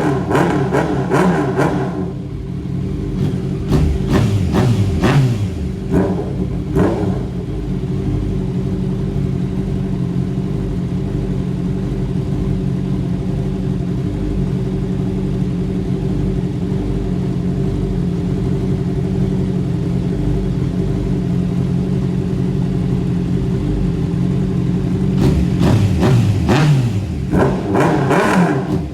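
Motorcycle engine idling steadily, revved in quick blips in the first few seconds and again near the end.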